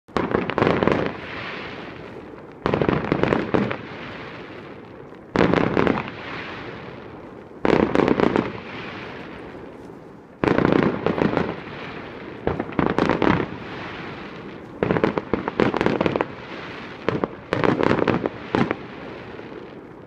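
Fireworks display: a run of loud crackling bursts, each lasting about a second and coming every two to three seconds, with the sound dying away between them. The bursts come closer together in the second half.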